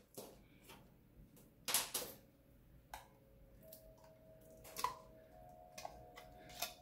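Faint, irregular clicks and taps of a small metal wire whisk against a glass measuring cup as an oily garlic and thyme mixture is scraped out, with a louder knock about two seconds in.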